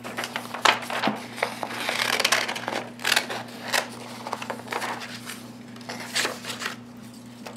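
Scissors snipping paper printables: a run of irregular short cuts, with a longer stretch of paper rustle about two seconds in.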